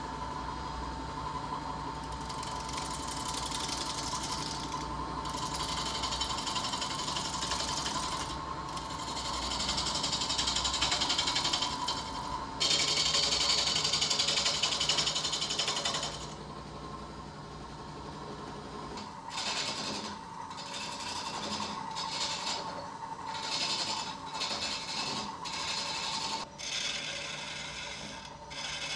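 Wood being worked with a tool: rough scraping and rasping strokes on the charred wood, some long and some short, over a steady thin whine.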